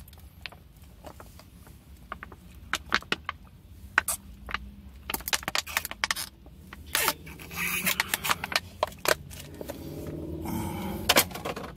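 Thin plastic water bottle crackling and crinkling in a string of sharp, irregular clicks as it is gripped, squeezed and drunk from.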